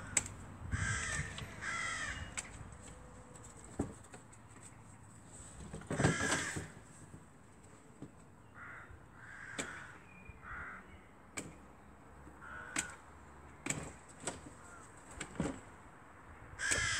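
Crows cawing in short, repeated calls: two about a second in, a louder one near six seconds, and fainter calls later. Scattered sharp clicks and knocks come in between.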